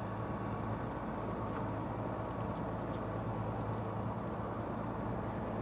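Steady low hum of the fishing boat's engine running, with a few faint clicks over it.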